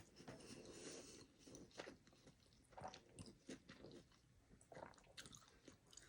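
A person chewing a mouthful of sushi roll: faint, irregular short mouth sounds from a close microphone.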